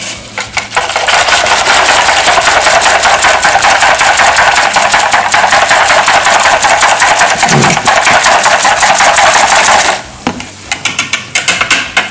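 A wire whisk beaten fast through a runny mixture in a measuring jug: a loud, steady rapid clatter of the wires against the jug's sides. About ten seconds in it breaks into a few separate strokes.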